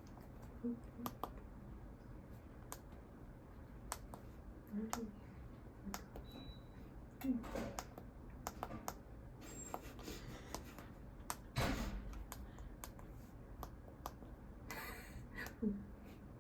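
Buttons on a microwave-clock control panel being pressed: an irregular run of sharp clicks and taps, with a brief high beep about six seconds in.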